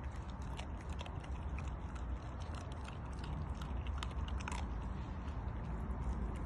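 Bull terrier gnawing at a whole raw chicken, with irregular wet crunching and clicking as its teeth work the meat and bone, over a steady low rumble.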